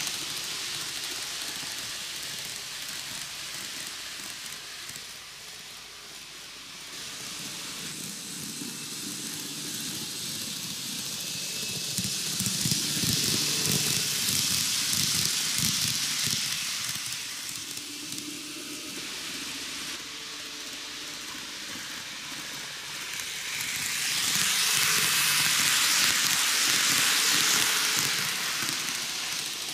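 TOMIX N-gauge 733-3000 series model train running on superelevated ballasted plastic track: a steady hissing rolling noise of its wheels and drive that swells twice, about halfway through and again near the end, as the train passes close by.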